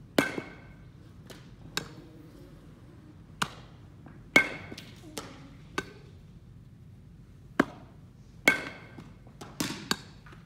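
A baseball bat hitting ground balls: three loud, ringing cracks about four seconds apart, with lighter knocks and taps in between.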